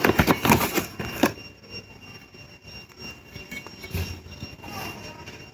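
Rustling and clicking of packaging being handled, busy for about the first second, then only faint scattered handling sounds.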